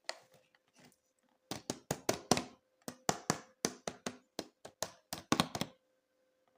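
Hands handling hard plastic toy pieces: a quick, irregular run of sharp clacks and taps. It starts about a second and a half in and stops shortly before the end, with a few fainter taps before it.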